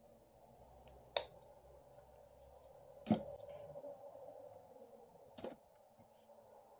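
Three sharp clicks and knocks, about a second in, about three seconds in and near the end, the middle one loudest, as a plastic acrylic paint bottle and a clear plastic palette lid are handled and set down on a tabletop.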